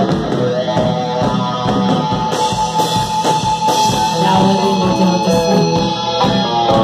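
Live rock band playing loud: electric guitar over a drum kit's steady beat.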